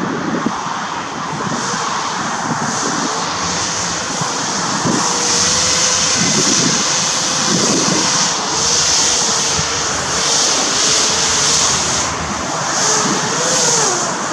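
Battery-powered fans of an RC hovercraft running, a propeller whine whose pitch wavers up and down with the throttle and grows louder from about a third of the way in.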